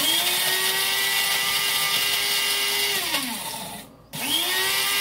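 Small electric grinder running, grinding freeze-dried diced tomatoes into powder: a steady motor whine for about three seconds that winds down and stops, then pulsed on again about four seconds in.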